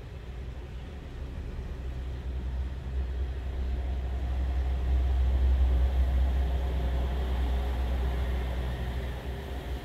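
Heavy diesel truck, a MAN tractor unit pulling a tanker trailer, driving past slowly on wet pavement. Its low engine rumble swells to its loudest about five or six seconds in, then eases off, over a steady hiss of tyres and rain.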